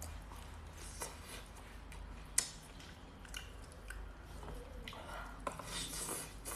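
Close-miked chewing of smoked pork knuckle: wet smacking and small clicks of the mouth, with one sharp click about two and a half seconds in.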